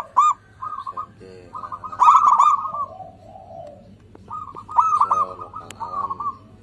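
Zebra dove (perkutut) cooing: phrases of quick, clipped notes repeated several times, the busiest around two seconds in and again near the end.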